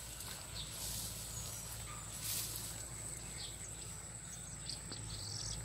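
Steady high-pitched insect drone with a few short chirps, and brief rustles of cattail leaves brushing past.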